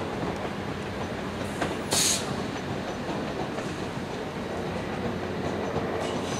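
Southern Class 455 electric multiple unit running away over the pointwork, wheels rumbling on the rails, with a brief high screech about two seconds in.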